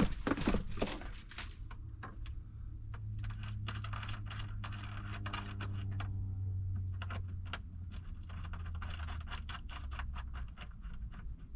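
Light metallic clicks, rattles and scrapes of a small wrench and a ring terminal being fitted and tightened onto a battery post, over a steady low hum.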